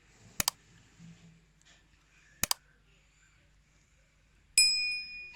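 Two quick double clicks about two seconds apart, then a sudden bright metallic ping that rings on and fades near the end.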